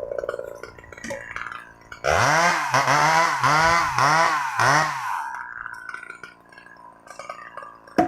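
Two-stroke chainsaw revved in about five quick throttle blips, its pitch rising and falling with each, then dropping back to a low idle. A sharp click comes near the end.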